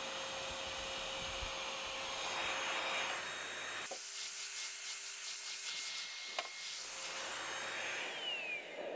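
Corded handheld stick vacuum cleaner running, its floor nozzle rubbing across a foam floor mat. Near the end the motor is switched off and its whine falls as it winds down.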